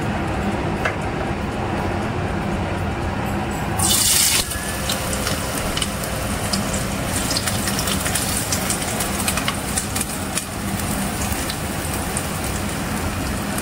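Sliced onions dropped into hot coconut oil in a steel pot, with a loud burst of sizzling about four seconds in. After that, steady sizzling and crackling as the onions fry.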